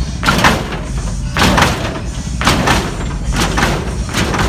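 Chevrolet Impala lowrider's hydraulic suspension being worked from the switch: a series of heavy clunks and thuds, some in quick pairs, over a steady low rumble.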